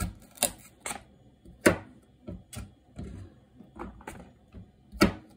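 Kitchen knife chopping boiled bamboo shoots on a cutting board: a run of sharp, uneven knocks about two a second.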